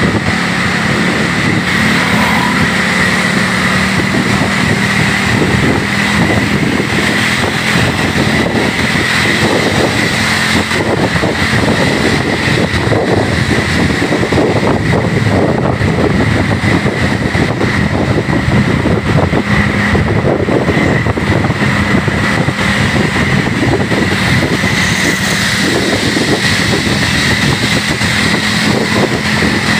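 A bus engine running steadily, with a constant low hum and road noise, and no horn melody.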